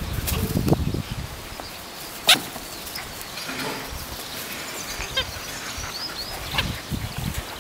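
Six-week-old puppy chewing a rubber chicken squeaky toy, which gives several short squeaks, the sharpest about two seconds in. Rumbling wind or handling noise on the microphone in the first second.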